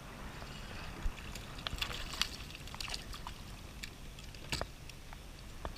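Choppy water lapping against the plastic hull of a Hobie Outback kayak, with wind rumbling on the microphone. A run of light clicks and knocks comes in the middle, and a sharper knock near the end.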